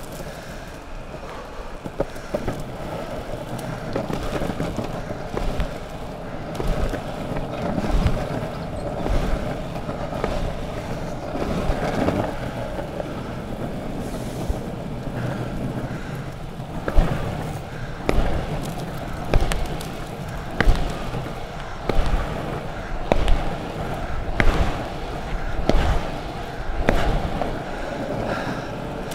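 Longboard wheels rolling over a tarmac path, a continuous rumble with occasional sharp clicks. From a little past halfway, the rumble swells in a regular rhythm about every second and a quarter as the board is carved from side to side.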